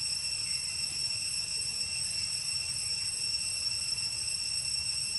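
A steady, high-pitched insect drone, typical of cicadas in the trees, with a low rumble beneath it.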